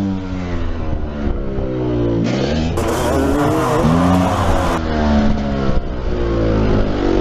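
An engine revving, its pitch sliding up and down, with abrupt changes in the sound about three and five seconds in.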